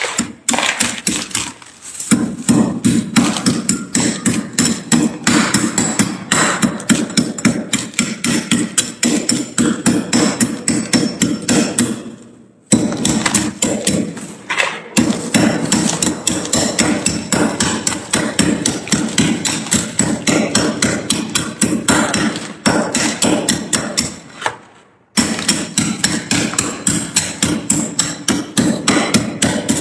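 A long metal spoon striking and scraping thick, packed frost off a freezer's walls and shelves, in rapid, steady chopping knocks as chunks of frost break loose. The knocking stops briefly twice, about twelve and twenty-five seconds in.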